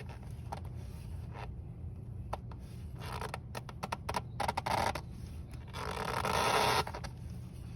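Hands and a rag working on a newly fitted oil filter: rubbing and scraping noises with scattered light clicks, the loudest rub lasting about a second near the end.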